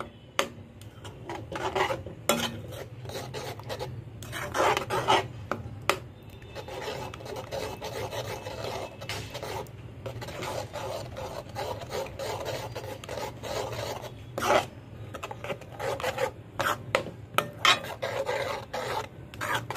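Metal spoon stirring and scraping a loose coconut, milk and sugar mixture around a metal kadhai, in repeated irregular scraping strokes, over a steady low hum.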